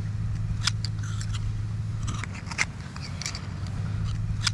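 Oyster knife clicking and scraping against oyster shells as an oyster is pried open, in short scattered clicks over a steady low hum.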